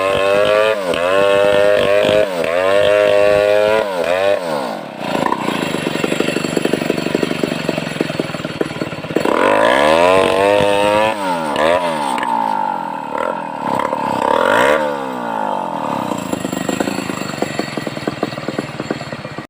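Home-built Stihl 070-clone two-stroke chainsaw revving up and down: quick rises and falls in pitch about once a second at first, then lower, rougher running broken by a few more rises, settling to a steadier speed near the end.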